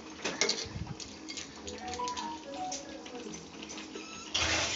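Chicken curry simmering in a pan, its gravy bubbling, with a few spatula clicks against the pan in the first second and a sudden burst of hiss near the end.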